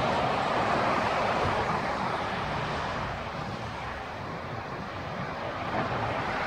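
Helicopter flying overhead, a steady drone that eases off slightly partway through.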